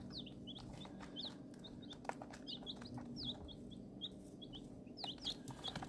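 A brood of baby chicks peeping: many short, high, falling cheeps overlapping, several a second, with a few faint clicks among them.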